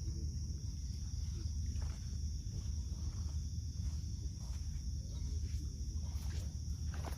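Steady high-pitched drone of night insects, over a constant low rumble.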